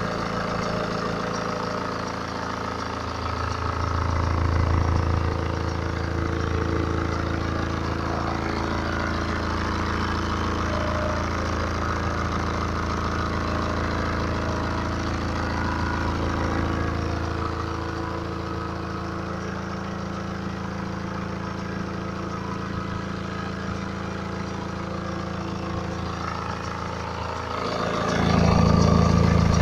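BMW N47 four-cylinder diesel of a 2011 318d idling cold with a steady note, swelling louder about four seconds in and again near the end. The owner asks whether timing chain noise can be heard in it.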